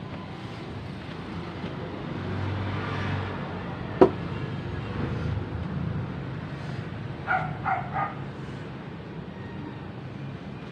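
Steady background traffic noise, with a single sharp knock about four seconds in and three quick high-pitched beeps a little later.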